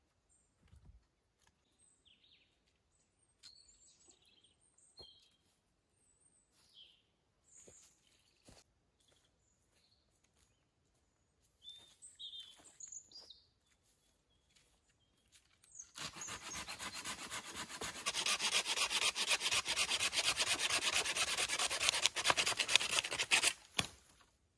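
Scattered bird chirps and a few small knocks, then about two-thirds of the way through a saw starts cutting through wood with a steady, dense rasp for about eight seconds and stops abruptly just before the end.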